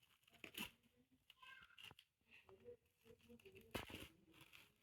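Plastic wrap being cut off the roll: faint crinkling and ripping with a few sharper crackles, the loudest a little before four seconds in.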